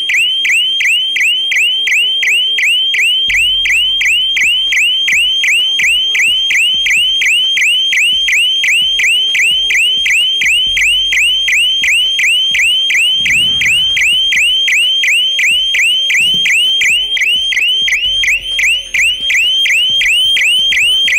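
Electronic siren of a Suraksha GSM shop-shutter anti-theft alarm sounding, triggered because the shutter was lifted off its plunger. It is a loud, high, rapidly repeated rising sweep, about three a second.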